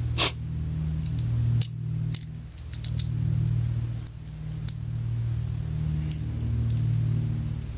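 Small metal clicks and taps from a precision screwdriver and its bits being handled and fitted, over a steady low hum.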